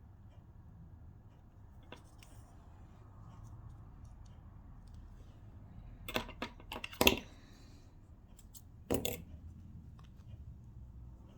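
Sharp clicks and taps from handling a metal zip and tools while mending its bottom stopper: a quick cluster just past halfway, then one more a couple of seconds later, over faint room noise.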